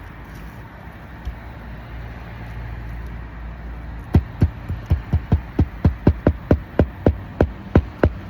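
Hammer driving roofing nails back through an asphalt shingle: a quick run of about fifteen sharp strikes, roughly three a second, starting about four seconds in.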